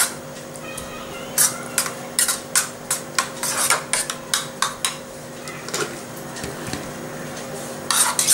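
A spoon stirring salt into thick strained yogurt in a small bowl, with irregular clinks and scrapes against the bowl, busiest in the first five seconds and picking up again near the end.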